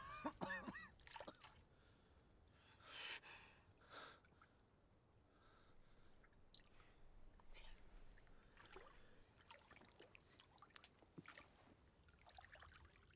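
Near silence, broken by faint gasping breaths: a short strained gasp with wavering pitch right at the start, then soft breaths about three and four seconds in, and a few faint breaths and small sounds later.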